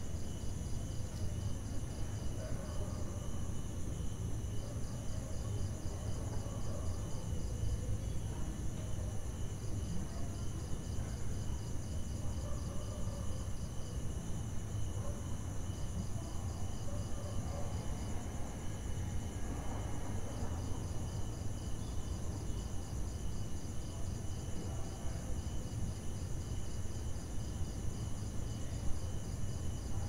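Crickets and other night insects singing steadily in several high, shrill bands, with one rapid pulsed chirp that starts and stops in bouts of a few seconds, over a low steady rumble.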